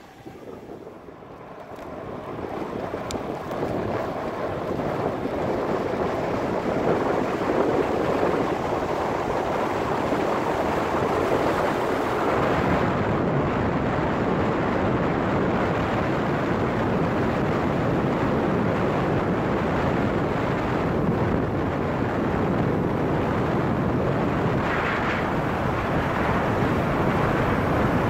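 Wind rushing over the microphone of a camera on a moving bicycle. It grows louder over the first several seconds, then holds steady.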